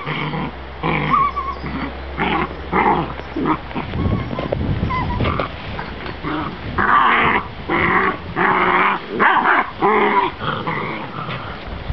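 Seven-week-old Kangal puppies play-fighting, growling in repeated short bursts that come thicker in the second half.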